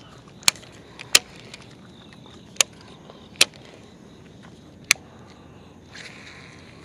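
A baitcasting rod and reel handled before a cast: about five sharp, separate clicks, then about six seconds in a short rushing swish as the jig is cast out.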